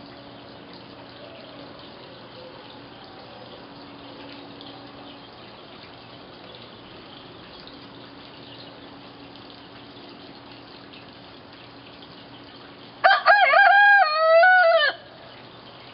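A hen crowing like a rooster: one cock-a-doodle-doo about two seconds long, near the end, with a wavering pitch, over a steady background hiss.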